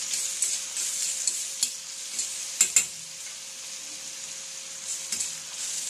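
Chopped capsicum, green chilli, ginger and garlic sizzling in oil in a stainless steel pan as a spatula stirs them, with a few sharp clicks of the spatula against the pan, the loudest about two and a half seconds in.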